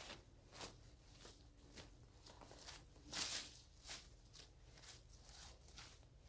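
Faint scraping and crunching of a digging tool working into dry soil and grass roots, in short strokes about every half second to second, the loudest about three seconds in.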